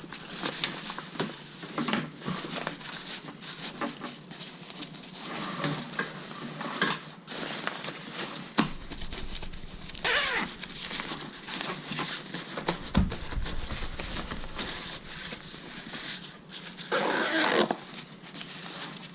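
Hands handling a fabric carry-on backpack: irregular rustling and scraping of the bag's material with scattered small clicks, and a couple of louder rasping strokes, one about ten seconds in and a longer one near the end.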